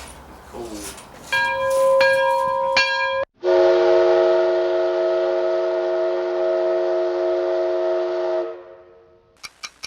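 A steady pitched tone held for about two seconds, then a chord of several steady tones held for about five seconds that fades out.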